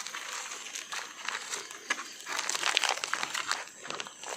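Crisp crinkling and crackling close by, a dense run of small crackles that grows busier in the second half.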